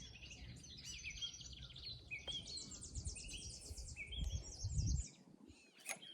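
Several songbirds singing: fast high trills and short whistled notes repeating about once a second, over a low rumble that stops about five seconds in.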